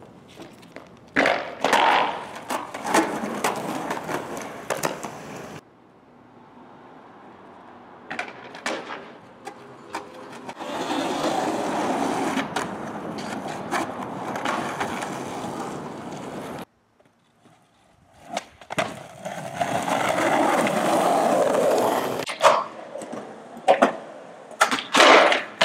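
Skateboard wheels rolling over concrete, with sharp clacks of the board hitting the ground and ledges. The sound breaks off suddenly twice and resumes on a new stretch of rolling.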